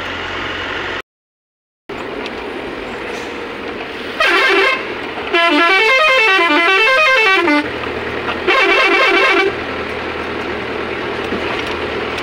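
Mini bus engine running with road noise inside the cab, while the bus's multi-tone musical horn sounds three times: a short warbling blast, a longer tune stepping down and back up in pitch, then another short warbling blast.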